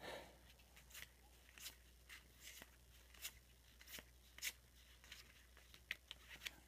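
Faint, irregular soft clicks and swishes of 1992-93 Topps cardboard basketball cards being flipped and slid off one another in the hand, about one or two a second.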